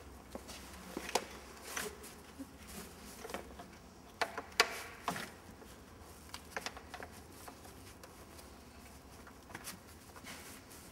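Scattered clicks and knocks of hands working a strap and retaining tube into a microlight trike's seat frame, the loudest cluster about four to five seconds in.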